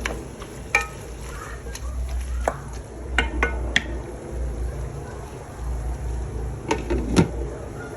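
Cooking in a pot: a metal utensil stirring and clinking against it, giving scattered sharp clicks over a steady low hum.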